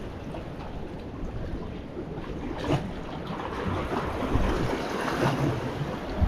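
Ocean waves washing against a rock wall, with wind buffeting the microphone; the wash swells louder in the second half, and a bigger surge comes at the very end.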